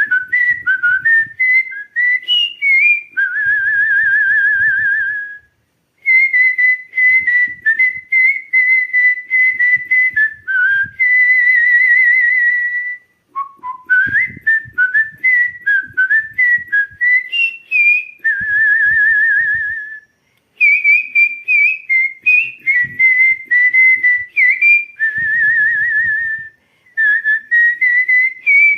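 Whistled imitation of goldfinch song: runs of short, clear chirping notes broken by wavering trills each held for about two seconds, repeated phrase after phrase with brief pauses.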